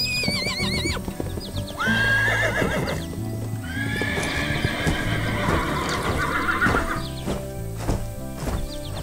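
A horse neighing three times with a quavering, wavering pitch, followed near the end by hooves clip-clopping at about two strikes a second. Background music plays underneath.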